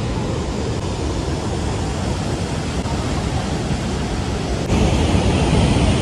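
The steady rush of a large waterfall, Athirappilly Falls, pouring over its rock face, growing a little louder about five seconds in.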